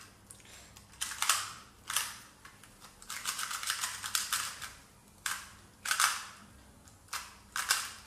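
2x2 Rubik's cube being turned fast by hand, its plastic layers clacking in short bursts with a quick run of turns in the middle.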